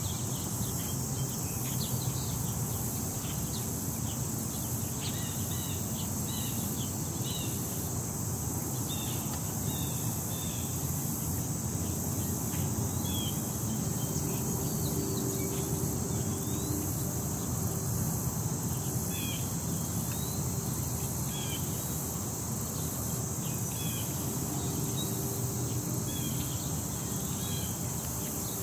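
Outdoor ambience in gusty wind: a steady low rumble of wind on the microphone under a constant high-pitched hiss, with many short bird chirps scattered throughout.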